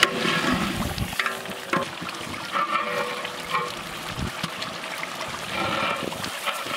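Broth boiling hard in a large cooking pot around a whole goat, bubbling and sloshing as a metal ladle stirs and splashes it, with a few short clinks against the pot.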